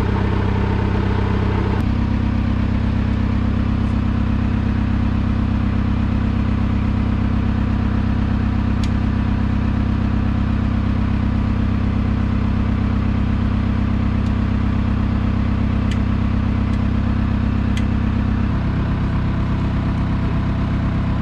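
An engine idling steadily, its tone changing slightly about two seconds in and again near the end, with a few faint clicks.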